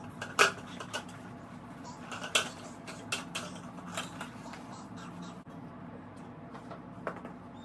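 Scattered light knocks and clatters of plastic baby toys and bag contents being handled on a foam play mat, over a steady low hum. The two loudest knocks come about half a second and two and a half seconds in.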